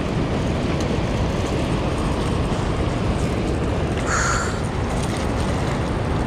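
Steady rush of fast water below a dam, with wind noise, while a hooked striped bass splashes at the surface. About four seconds in, a brief harsh call cuts through.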